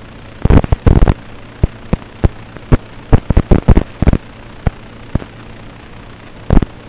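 Loud crackling pops over a steady hum and hiss in the DVR-recorded audio of an analog FPV video link: a rapid string of cracks from about half a second in to about four seconds, and one more near the end. They come as the analog video signal breaks up into interference.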